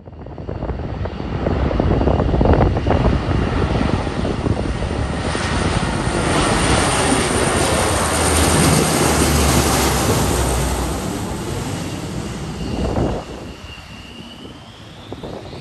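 Lockheed C-130 Hercules' four turboprop engines droning as it flies low overhead on its landing approach. The sound builds over the first couple of seconds and is loudest as the aircraft passes over. It drops off sharply about 13 seconds in as the aircraft moves away, leaving a fainter drone and a high whine.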